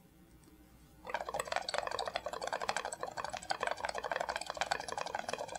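Air bubbling through lime water in a glass flask, drawn down through the liquid by sucking on a glass tube: a dense, rapid crackle of small bubbles that starts about a second in and keeps going.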